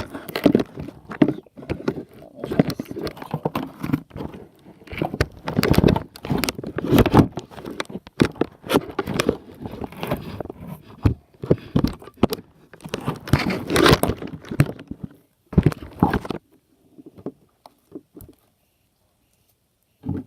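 Clear slime with a pile of shaving cream being squished and kneaded by hand: irregular squishing noises that stop about sixteen seconds in.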